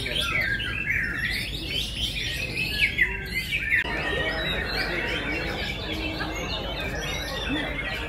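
Many caged white-rumped shamas (murai batu) singing at once in a contest: a dense tangle of overlapping quick whistles and chirps, with crowd murmur beneath from about four seconds in.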